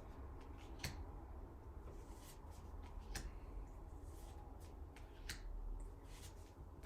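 Faint handling of Pokémon trading cards and a booster pack: a few short sharp clicks and crinkles, over a low steady hum.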